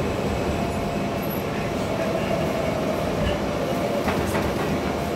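R160 subway car heard from inside, rolling into a station as it slows to a stop: a steady rumble of wheels on rail with a faint steady whine, and a few light clicks about four seconds in.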